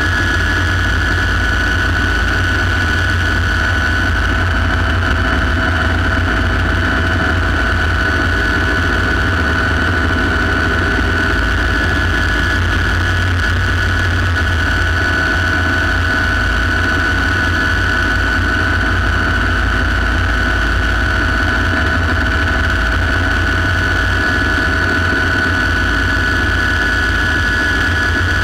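Light turbine helicopter in flight, heard from inside the cockpit: a steady high turbine whine over a constant low rotor and engine rumble.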